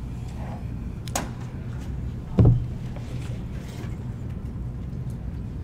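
Quiet meeting-room tone with a steady low hum, a faint click a little over a second in, and one dull thump about two and a half seconds in.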